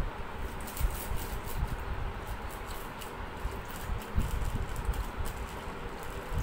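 Water pouring from a plastic bottle into a steel bowl of urad dal, splashing and trickling over the lentils as they are covered for soaking, with many small crackling ticks.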